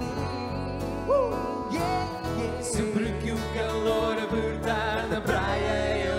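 Live acoustic pop band playing: acoustic guitars and bass guitar under a man singing into a handheld microphone, his voice holding and bending notes.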